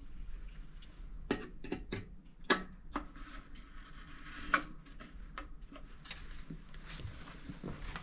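Scattered light clicks and knocks of something being handled, at irregular intervals over a faint hiss.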